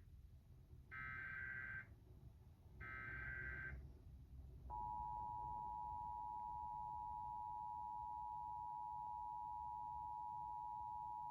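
Emergency Alert System broadcast tones marking the start of a Required Monthly Test. First come two SAME digital header bursts, each a rasping data screech about a second long with a short gap between. Just under five seconds in, the steady two-tone EAS attention signal starts and holds.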